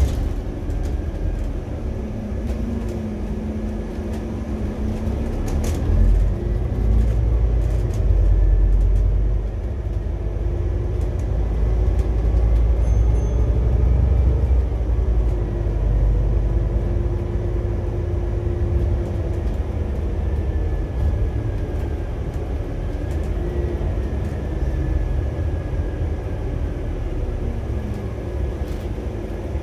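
Scania N280UD bus's compressed-biogas engine and drivetrain heard from on board, a steady heavy rumble that swells and eases with slowly rising and falling tones as the bus accelerates and slows. A few sharp clicks or rattles from the bus, mostly near the start.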